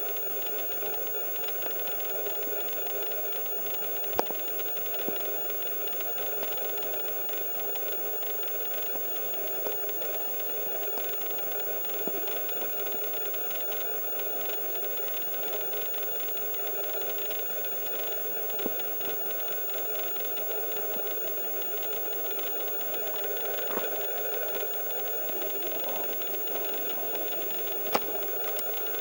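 A motor running steadily in the background, with a few sharp clicks, the loudest about four seconds in and near the end.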